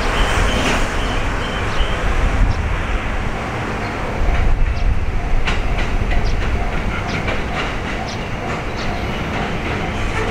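A JR East 205 series 1100 electric commuter train approaching on the line. Its running makes a steady low rumble, with irregular clicks of the wheels passing over rail joints from about two seconds in.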